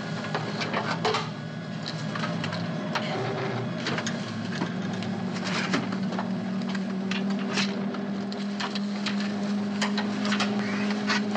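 Aircraft cockpit sounds before taxi: a steady mechanical hum that steps up slightly in pitch about five seconds in and holds, with many sharp clicks over it.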